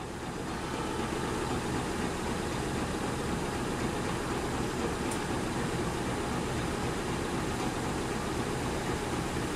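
Diesel locomotive of a standing train idling close by: a steady low engine hum.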